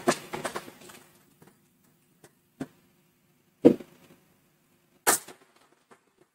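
A few scattered short knocks and rustles over a faint steady hum, spaced a second or more apart, from a heavily noise-reduced recording.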